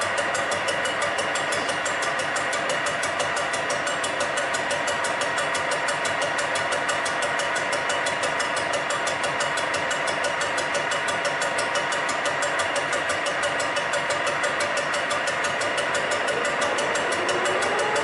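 Metal lathe turning an electric motor bearing housing: the spindle and gearbox running with steady whining tones, and the tool taking an interrupted cut that ticks rapidly and evenly as it meets the part's uneven outer edge once each turn. A tone rises in pitch near the end.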